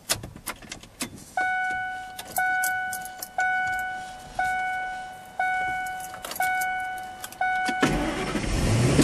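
A pickup truck's dashboard warning chime dings about once a second, seven times, after a few clicks of the key in the ignition. Near the end the starter cranks and the engine starts and runs.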